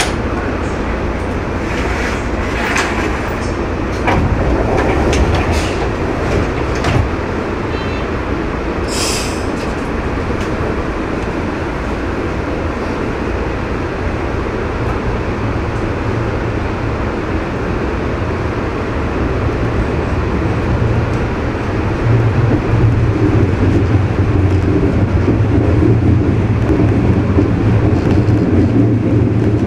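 JR West 103 series electric train running along the track: a steady wheel-and-rail rumble with a few sharp clicks in the first several seconds and a brief high hiss about nine seconds in. From about two-thirds of the way through it grows louder, with a strong low hum under the rumble.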